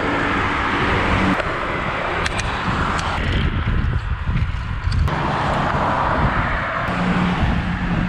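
Riding a bicycle along a highway: wind rushing over the microphone mixed with passing car traffic, with a few sharp clicks.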